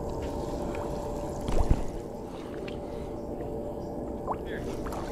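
River water sloshing and gurgling around a person wading deep in waders, with a louder thump about a second and a half in.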